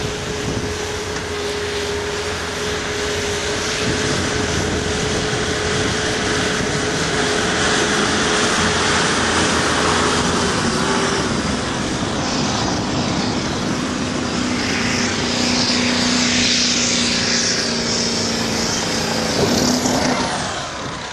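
2007 Ford diesel pickup pulling a sled at full throttle: a loud, steady engine drone that grows louder and brighter as the truck comes closer. About a second before the end it drops off sharply, the pitch falling away.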